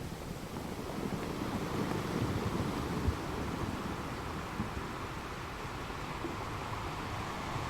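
Water washing against rocks in a lull between breaking waves: a low, rumbling wash of water, with a brief thud about three seconds in.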